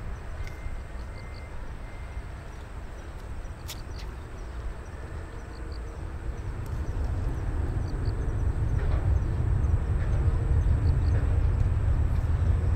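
Boeing 737 airliner on landing approach: a low jet-engine rumble that grows steadily louder from about halfway through as the aircraft draws nearer.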